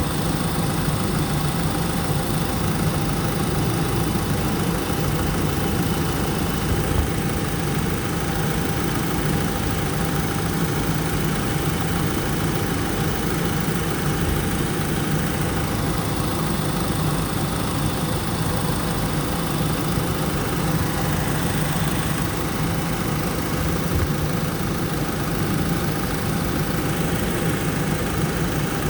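Car engine idling steadily, left running to burp trapped air out of the cooling system after a coolant flush.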